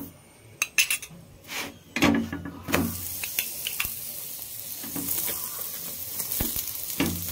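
Oil sizzling on a hot griddle (tawa) as it is poured over a stuffed flatbread and spread with a steel spoon. A few spoon clinks come in the first couple of seconds, then a steady sizzle from about three seconds in.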